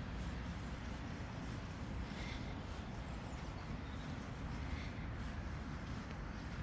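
Steady outdoor ambience, mostly a low rumble, with a few faint short high calls or chirps about two and a half seconds apart.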